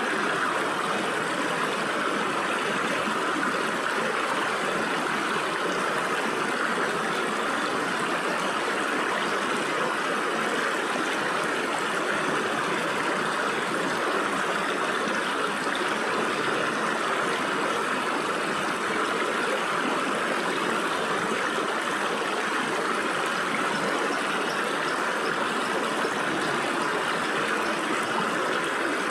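Stream water running and gurgling through gaps between rocks, a steady, unbroken rush.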